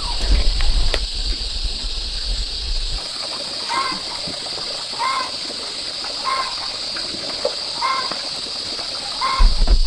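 Steady high-pitched drone of insects such as cicadas or crickets, with a short call repeated five times, about every second and a quarter, through the second half. A low rumble sits under the first few seconds and returns near the end.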